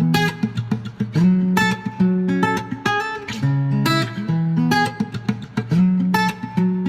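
Background music: plucked and strummed guitar playing a steady rhythmic pattern.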